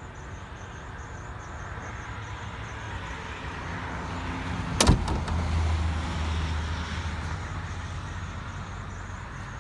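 A Jeep Wrangler's hood slammed shut with one sharp bang about five seconds in, over a steady low rumble.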